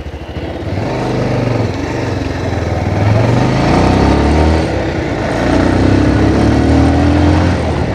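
Motorcycle engine accelerating on the road, its pitch climbing twice, with a steady rushing noise underneath.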